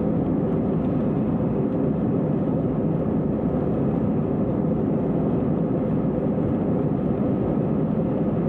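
Steady drone of a jet airliner's engines and rushing air, heard from inside the passenger cabin.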